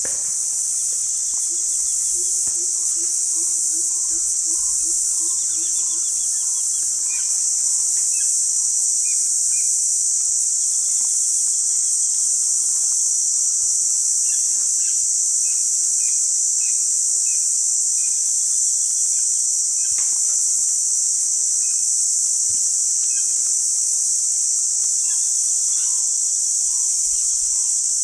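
Loud, steady, high-pitched chorus of insects droning without a break, with scattered bird calls over it, including a quick run of about a dozen low hooting notes in the first few seconds.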